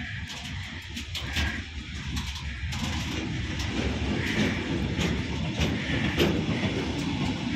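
Covered freight wagons of a departing train rolling past close by on steel wheels. A steady rumble with repeated sharp clicks and clatter as the wheels pass over the track; it grows louder about three seconds in.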